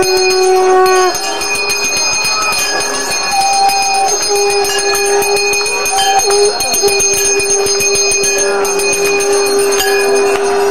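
Hindu ritual hand bells ringing rapidly and without pause, over a long, steady held tone that breaks off only briefly.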